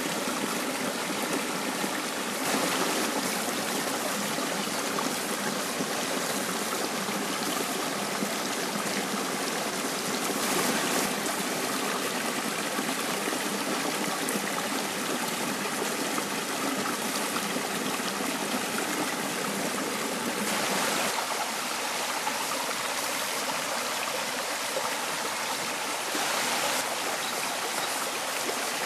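Shallow rocky stream running and splashing over small cascades between boulders: a steady rush of water with a few brief louder swells. About two-thirds of the way through it turns lighter, with less of the deep rush.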